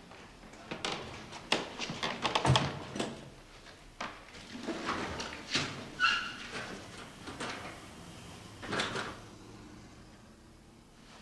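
Scattered knocks, clicks and scrapes, with a short squeak about six seconds in: the noises of burglars breaking into a shop at night.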